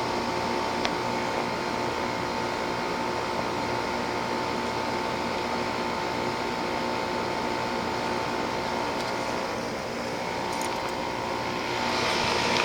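2001 Trane XE1000 5-ton heat pump's outdoor unit running in heating mode: a steady hum of the scroll compressor and condenser fan with a steady high tone. Near the end the noise grows louder and hissier.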